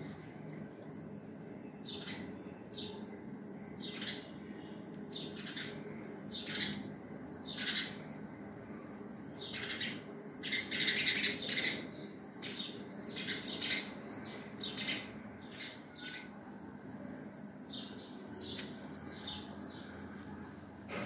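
Small birds chirping in short, repeated calls, busiest about ten to twelve seconds in, over a faint steady low hum.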